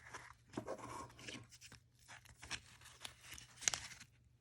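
Plastic Leatherman bit holders being handled and pushed into a tool sheath: faint, scattered small clicks, scrapes and rustles, with one sharper click about three and a half seconds in.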